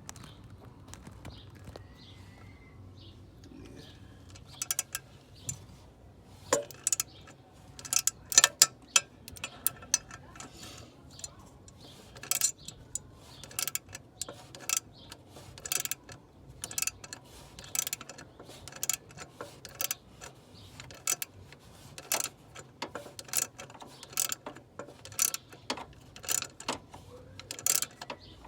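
Hand ratchet clicking as it turns the forcing screw of a harmonic balancer puller on a 5.7 Hemi crankshaft. The clicks are scattered at first, then settle from about halfway into a steady run of strokes, slightly more than one a second.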